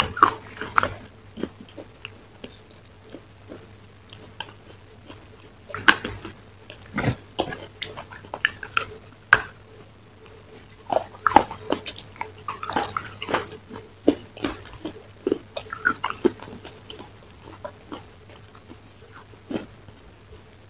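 Close-miked biting and chewing of pieces of hard chocolate shell: sharp snaps and crunches at irregular intervals, busiest in the middle. A faint steady hum lies underneath.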